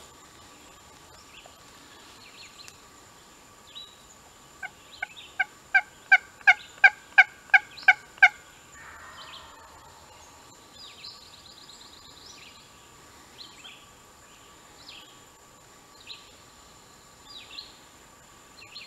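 A turkey call run as a string of about eleven hen yelps, evenly spaced and growing louder. A faint, distant wild turkey gobble answers right after. Small songbirds chirp throughout.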